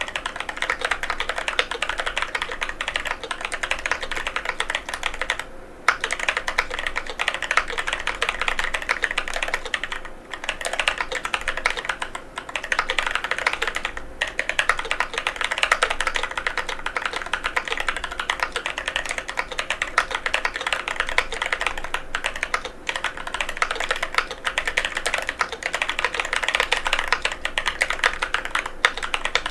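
Fast, continuous typing on a NovelKeys NK87 aluminum mechanical keyboard with Durock White Lotus tactile switches: a dense stream of key clacks, broken by brief pauses about six and ten seconds in.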